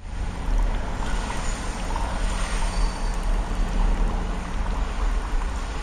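Car driving along a city road, heard from inside the cabin behind the windscreen: steady rumble of tyres and engine with wind noise.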